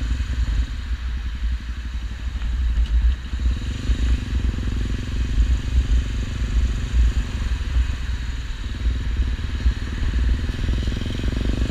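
Honda XRE 300's single-cylinder engine running through an aftermarket Roncar RS5 Boca 8 exhaust, heavily mixed with deep wind rumble on the camera microphone. The loudness stays fairly steady, with no clear revving.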